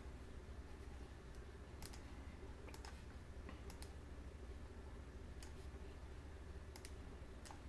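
Computer mouse clicking: scattered sharp clicks, several in quick pairs like double-clicks, over a faint low steady hum.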